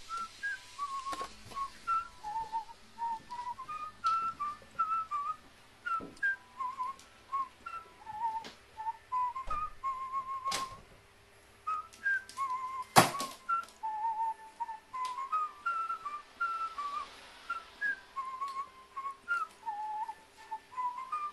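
A whistled tune of short notes, over occasional sharp clicks and knocks, the loudest about 13 seconds in.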